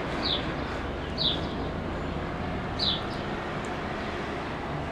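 Steady outdoor background noise with a small bird chirping three times, each a short falling note.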